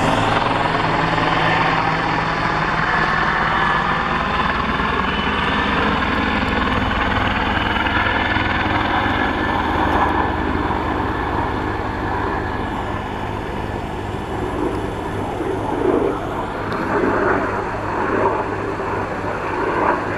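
Helicopter flying overhead, a steady rotor and engine sound whose pitch slides as it passes.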